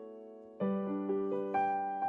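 Piano backing-track intro: a held chord fades away, then a new chord is struck about half a second in, followed by single notes.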